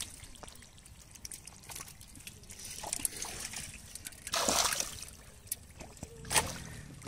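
Shallow muddy water trickling and splashing faintly as fish wriggle in it, with small wet clicks throughout. A louder splash about four and a half seconds in as a hand plunges into the mud, and a shorter one near the end.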